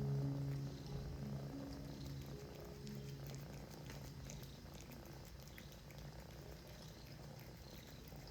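Domestic cat purring, a steady low rumble close to the microphone that fades slightly.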